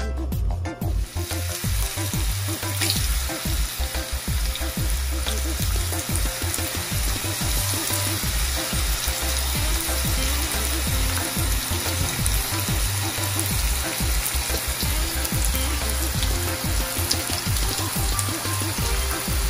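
Breadfruit wedges frying in hot oil in a pan: a steady, dense sizzle that starts about a second in.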